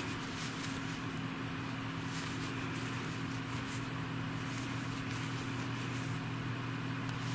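Steady low electrical hum and hiss of room tone, with faint scattered soft ticks and rustles from a crochet hook working cotton yarn.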